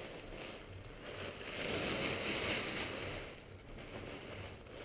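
Nylon parachute canopy fabric rustling and swishing as it is handled, in soft swells, loudest about two seconds in.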